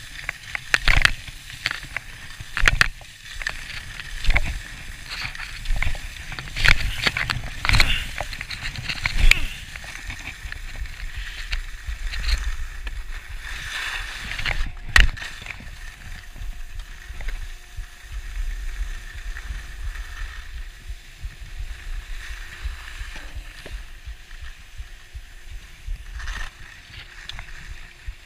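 Skis sliding and scraping over packed snow on a run, in repeated swells over the first ten seconds as the skier turns. A sharp knock comes about halfway through, and the rest is a quieter, steadier hiss of the skis gliding.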